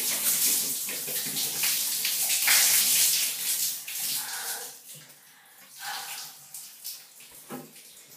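Water poured from a cup over a person's head, splashing down onto a tiled shower floor. It rushes steadily for the first four seconds or so, then comes in a few shorter splashes.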